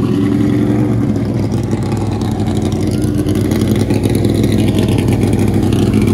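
Ford Mustang Boss 302 race car's V8 running steadily at low revs, a loud, dense low pulsing that grows slightly louder near the end.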